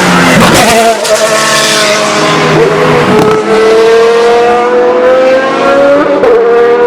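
Supercar engine accelerating hard, its pitch climbing steadily between quick gear changes about three seconds in and again near six seconds.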